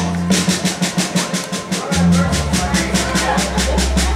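Live band playing: a drum kit beating out quick, even strokes about eight a second, over sustained bass notes.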